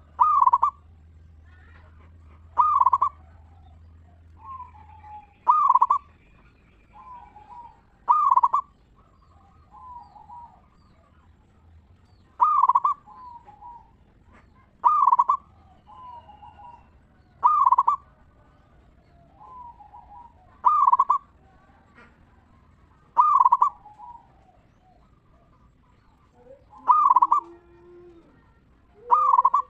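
Zebra dove (perkutut) singing: loud ringing coos repeated about every two and a half seconds, each followed by softer, quicker notes. Some lower notes come in near the end.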